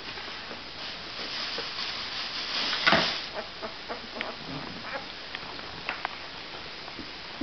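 Newborn Great Pyrenees puppies making small squeaky animal noises as they crawl and root on a blanket. Fabric rustling builds from about a second in, with one sharp, loud rustle or bump near three seconds in.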